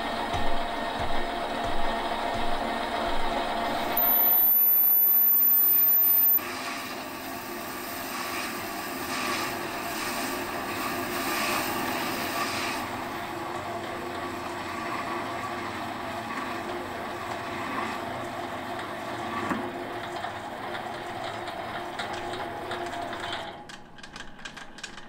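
Small metal lathe running while turning a brass gear blank. For the first four seconds there is a regular knock about every half second or so, then a louder steady stretch for a couple of seconds, then steadier running that stops near the end.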